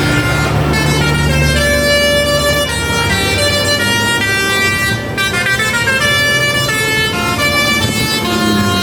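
Basuri 'telolet' multi-tone bus horn playing a melody of held notes that step from pitch to pitch, over the low, steady running of the bus engine.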